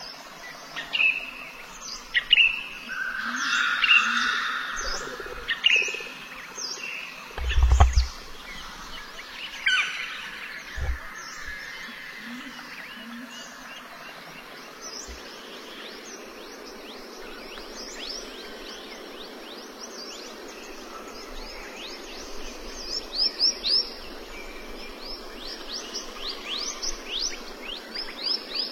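Birds chirping and calling: scattered chirps, then in the last few seconds a fast run of short, high, downward-sweeping calls, several a second. A low thump about eight seconds in.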